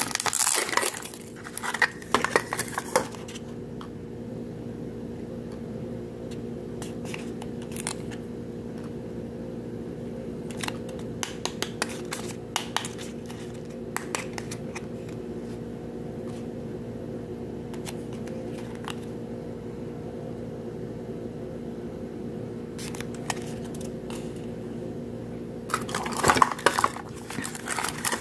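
Foil-lined paper wrapping crinkling as it is peeled off a plastic Mini Brands capsule ball, in busy bursts at the start and near the end, with scattered light clicks and rustles between, over a steady low hum.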